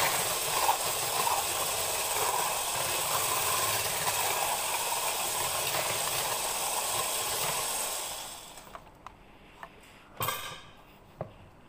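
Electric hand mixer running steadily, its beaters whisking eggs in a plastic bowl to beat them up to double their volume; it stops about eight seconds in, and a few light knocks follow, the loudest near ten seconds.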